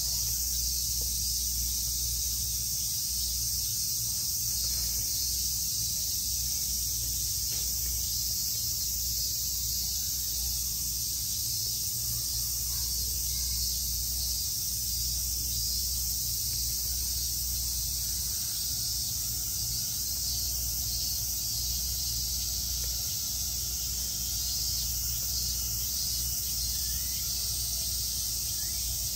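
Cicadas buzzing in a dense, steady summer chorus, a high sizzle that holds unbroken, over a low steady rumble.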